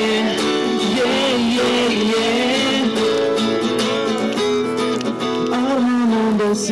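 A Kazakh pop song with guitar accompaniment: a long, wavering sung note is held between lines of the lyrics.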